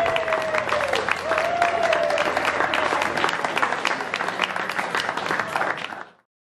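Crowd applauding, many hands clapping at once, cut off abruptly about six seconds in.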